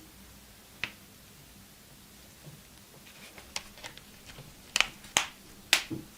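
Sharp clicks and taps from handling a phone and its packaging: one click, then a run of small ticks, then three loud clicks near the end.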